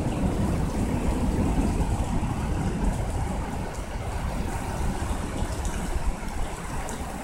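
Thunderstorm: a deep, steady rumble with the hiss of heavy rain, slowly dying away over several seconds.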